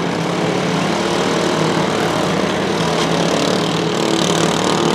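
Several riding lawn mowers' small engines running together as they drive, a steady mixed drone of overlapping engine tones.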